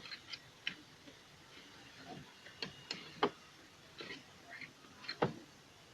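Scattered light clicks and knocks at irregular moments, a handful of them a little sharper than the rest: handling noise from hands working on the car.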